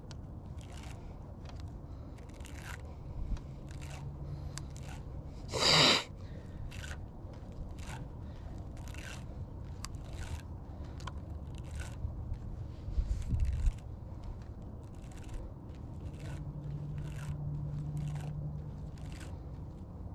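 Fishing reel and line being handled by hand to clear loose, tangled line: scattered small clicks and scrapes, with one louder scrape just before six seconds in and a few low bumps around thirteen seconds.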